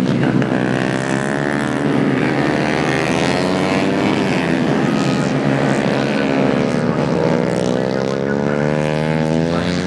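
Several Yamaha underbone racing motorcycles revving hard, their engine notes rising and falling and overlapping as the bikes shift and pass.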